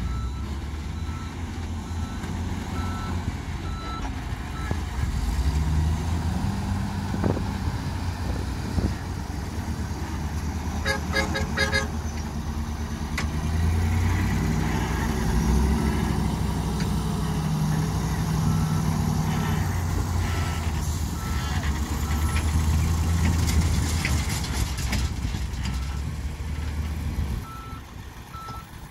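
A loaded dump truck's diesel engine running under load as it manoeuvres in sand, its reversing alarm giving short repeated beeps near the start and again through the second half. Around the middle comes a quick run of about six sharp beeps, and the engine drops quieter near the end.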